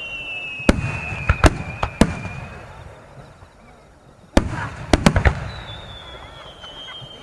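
Aerial fireworks shells bursting in sharp, irregular bangs, about seven in all, with a lull in the middle. A long whistle slides slowly down in pitch behind the bangs; it fades out around two and a half seconds in, and another begins about five and a half seconds in.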